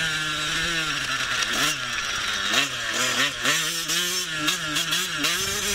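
Motocross bike engine being ridden, its pitch repeatedly climbing and dropping back as the throttle is opened and closed.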